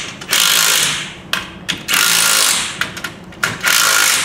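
Cordless impact driver hammering in short bursts, three times, as it tightens the bolts holding the top of a truck-deck leg to its rail.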